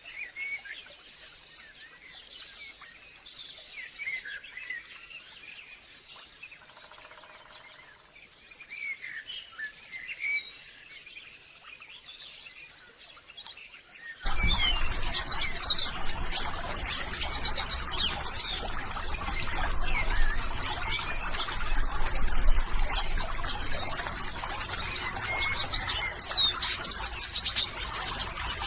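Wild birds chirping and calling in short, rapid notes. About halfway through, the sound jumps to a louder recording with a steady hiss, a low rumble and more chirps.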